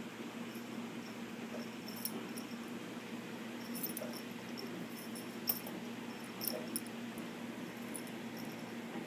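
A cat playing with a fishing-rod toy: a few short, light clicks from the toy and the cat's pouncing, over a steady low hum.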